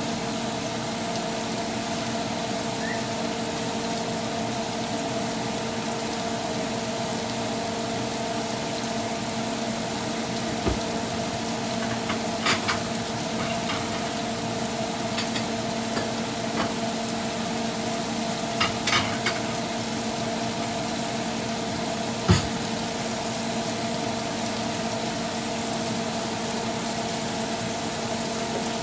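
Shrimp frying in garlic butter in a nonstick grill pan, with a steady sizzle and now and then a sharp pop or crackle of spattering butter. A steady low hum runs underneath.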